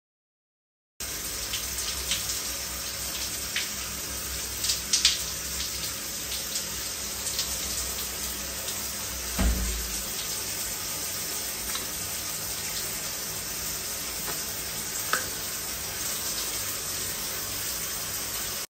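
Shower running: a steady spray of water that starts about a second in, with a few light knocks and one dull thump about halfway through.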